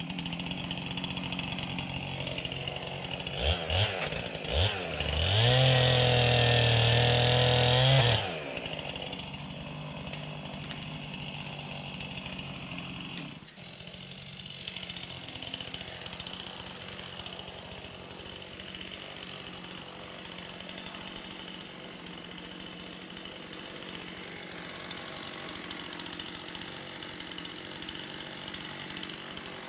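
Gas chainsaw idling, blipped twice, then held at full throttle for about three seconds before dropping back to idle.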